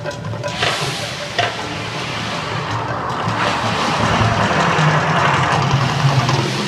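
A man-made volcano's fire effects roaring, a rushing noise that starts about half a second in and grows louder in the second half, over drum-led show music.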